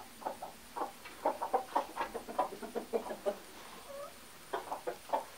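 Chickens clucking: a quick run of short, pitched clucks for about three seconds, a lull, then a few more clucks near the end.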